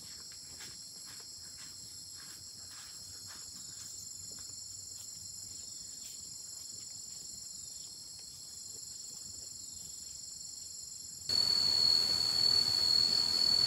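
A steady, high-pitched chorus of insects, with faint ticks over it. About eleven seconds in, it cuts abruptly to a louder steady noise carrying a high whine.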